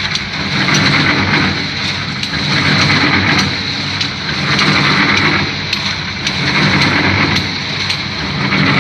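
Diesel engine of concrete-pouring machinery running steadily under load, its sound swelling and easing about every two seconds.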